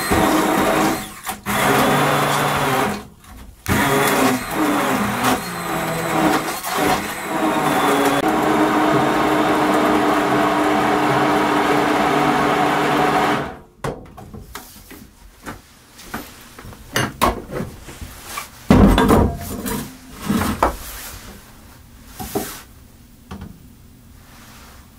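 Water running hard from a kitchen tap into a vessel, shut off abruptly about halfway through. Then light knocks and clinks of kitchen things being handled, with one louder bump, as a glass bowl is set on the wooden board.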